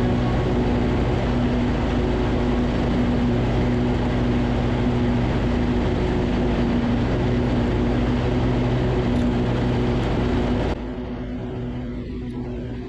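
Lawn tractor engine running steadily under mowing load, a constant low hum. Near the end it cuts off suddenly to a quieter, duller sound.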